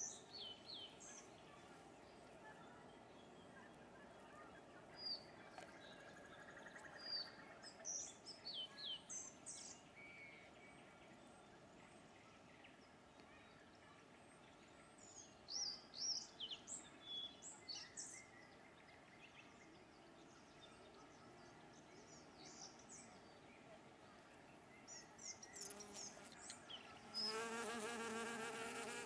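Small birds chirping in short scattered calls over a quiet background; about two seconds from the end a honeybee flies in close, its wings buzzing in a steady low hum that becomes the loudest sound.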